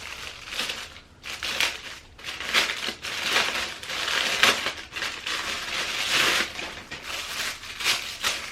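Packaging crinkling and rustling in irregular bursts as a makeup bag is pulled out of it and handled.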